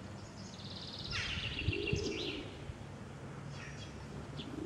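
Birds calling: a quick high trill and a string of chirps about a second in, with a lower call twice, once near the middle and once near the end, over a faint steady hum.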